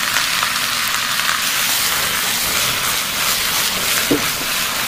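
Sliced sea snail meat sizzling steadily as it fries in hot oil with scallion and ginger. A brief ringing clink about four seconds in.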